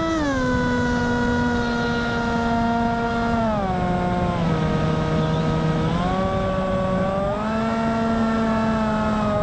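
Electric motor and propeller of an FPV racing wing whining in flight, its pitch stepping down about half a second in, down again near the middle, then back up as the throttle changes.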